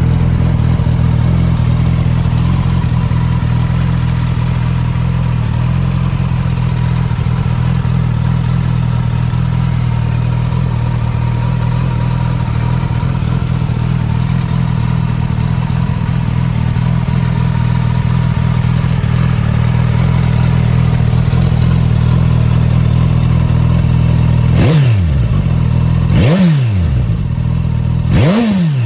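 Suzuki Katana's inline-four engine idling steadily through its stock exhaust, then blipped three times near the end, about two seconds apart, each rev rising and falling quickly in pitch.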